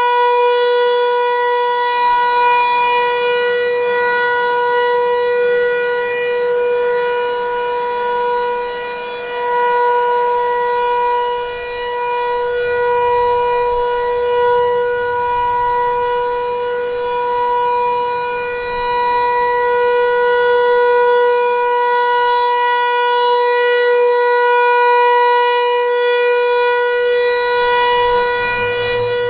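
Federal Signal 508-128 outdoor warning siren sounding its Alert signal: one loud, steady tone held at constant pitch, its loudness dipping briefly a few times.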